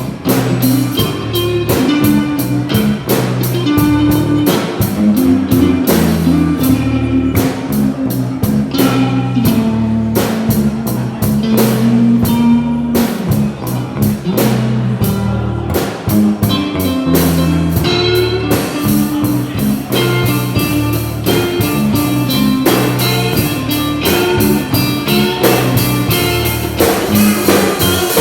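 A rock band plays an instrumental passage: electric guitar over a drum kit keeping a steady beat, with held low notes underneath.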